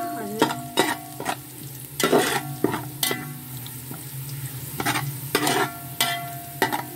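Sliced onions and whole garam masala sizzling as they fry in hot oil in a metal pot. A perforated metal spoon scrapes and clinks against the pot as they are stirred, about one or two strokes a second, some of them ringing.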